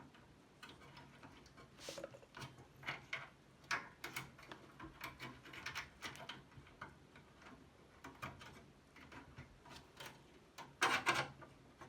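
Light, scattered clicks and taps of small hardware being handled as a switch is fitted onto a computer's processor board, with a louder cluster of clicks near the end.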